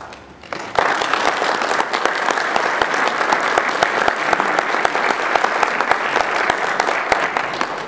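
Audience applauding, beginning about a second in and keeping up steadily with many overlapping claps.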